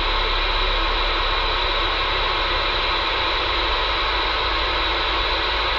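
Handheld marine VHF radio, newly fitted with an external antenna and set to channel 16, giving out steady static hiss from its speaker, with no voice coming through.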